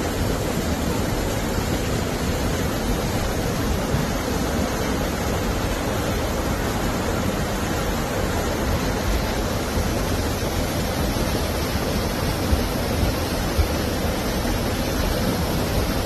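A steady, loud rush of water from the storm's heavy rain and floodwater, unbroken throughout, with a few faint knocks near the end.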